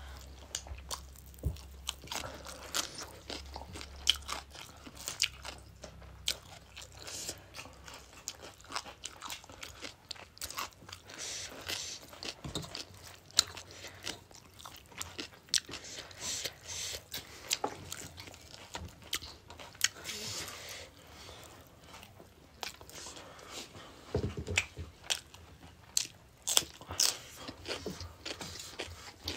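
Close-up eating sounds of people chewing and biting mouthfuls of rice and chicken curry, with many irregular sharp crunches and wet mouth clicks.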